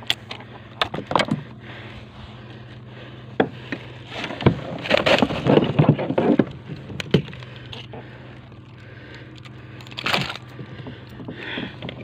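Irregular knocks, taps and scraping on a plastic sit-on-top kayak as a freshly caught mangrove jack is handled, with a denser stretch of rustling and knocking around the middle and short clusters again near the end.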